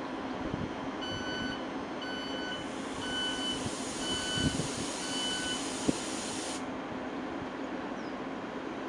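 Electric train's door warning beeps, about five evenly spaced half-second beeps, with a burst of air hiss that starts partway through and cuts off suddenly. A steady low hum from the standing train runs underneath.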